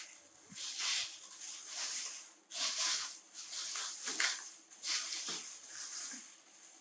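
Thin plastic bag crinkling and rustling in irregular bursts, about one a second, as it is handled.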